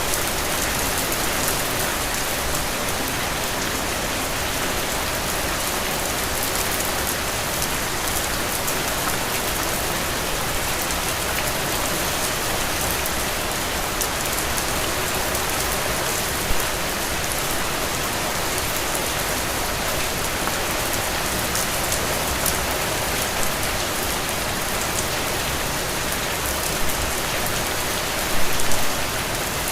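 Steady rain falling and pattering, an even hiss with fine drop ticks, with a few brief louder taps near the end.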